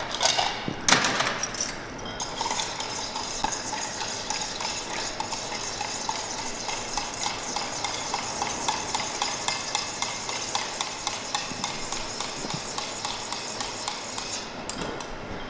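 Ice clattering into a stainless-steel mixing tin for about the first two seconds, then a bar spoon stirring a cocktail over the ice in the tin, a steady rhythmic clinking of ice against metal.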